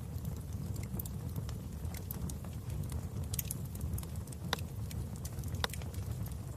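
Wood fire burning in a fireplace: a steady low rumble of flames with scattered sharp crackles and pops, two louder pops in the second half.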